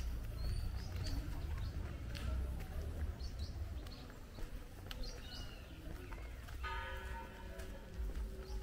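Street ambience: birds give short chirps over a steady low rumble. Near the end a sustained ringing tone with several overtones starts and holds.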